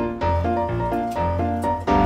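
Background instrumental music: a quick keyboard melody over a bass line.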